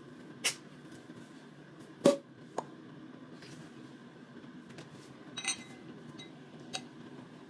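Champagne cork popping out of the bottle under a towel: one sharp, short pop about two seconds in. A few light clicks and clinks of glass follow as the bottle and wine glass are handled for pouring.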